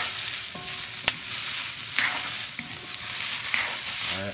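Vegetables sizzling in a hot cast-iron wok as a wooden spatula stirs them. The spatula scrapes and knocks against the pan, once sharply about a second in.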